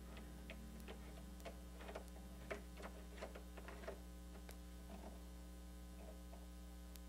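Steady electrical hum, with faint scattered clicks and scrapes from a brass doorknob being turned by hand onto its threaded spindle, most of them in the first four seconds.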